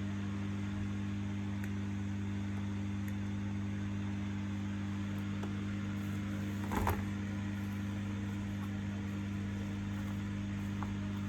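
A steady low hum, with one short knock about seven seconds in.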